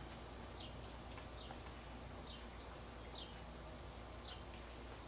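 Faint, high-pitched animal chirps, each falling slightly in pitch, repeated about once a second over a low steady hum.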